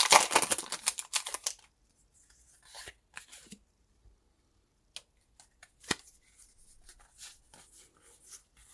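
Foil wrapper of a Pokémon trading-card booster pack crinkling as it is torn open for the first second or so, then trading cards softly sliding and clicking as they are handled one by one, with one sharper snap about six seconds in.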